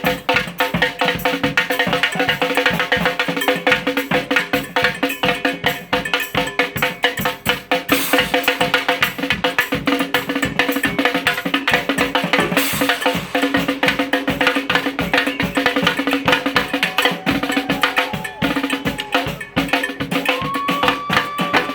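Brass band playing live, a busy drum beat driving under held low horn notes.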